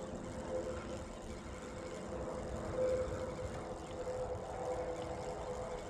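A steady mechanical hum with a constant mid-pitched tone over a low rumble, swelling slightly about halfway through.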